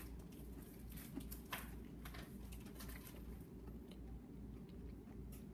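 Faint chewing of an Oreo cookie: a few soft crunches and mouth clicks, mostly in the first three seconds and once more near the end, over a low steady hum.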